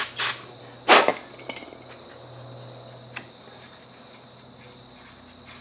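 Metal clinking as a nut is started by hand on the bolt through the steering knuckle: two sharp clinks in the first second, then a few faint ticks.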